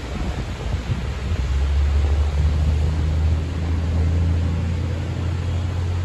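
A motor vehicle's engine passing close by: a low rumble that swells about a second and a half in, holds, and fades near the end, over a steady hiss.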